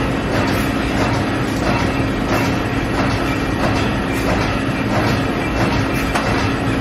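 Factory machinery running steadily: a constant noisy din with a low hum and faint clicks recurring about once a second.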